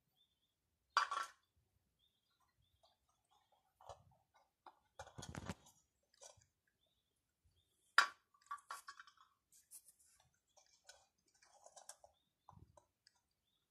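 A cat licking at an aluminium flan cup on concrete: faint, scattered licking and small clicks and scrapes of the cup, with a few louder sharp knocks.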